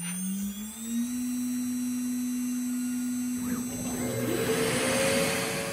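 CNC router spindle spinning up, its whine rising in pitch and levelling off about a second in. From about three and a half seconds a rushing hiss builds and grows louder as the 1/4-inch compression bit starts cutting into the board.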